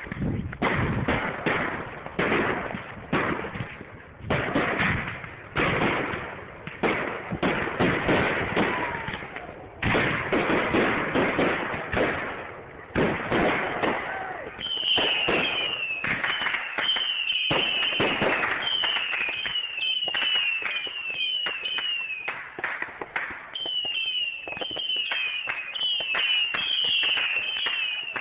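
Consumer fireworks going off in rapid succession, a dense run of bangs and crackles. From about halfway, short high whistles falling in pitch repeat over the bangs, less than a second apart.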